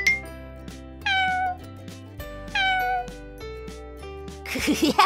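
A kitten meowing twice, each meow about half a second long and falling in pitch, over light background music.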